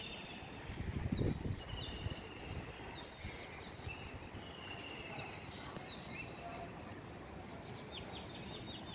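Birds calling in short trilled phrases and quick falling notes, with a fast run of short notes near the end, over a steady outdoor background hiss. A brief low rumble comes about a second in.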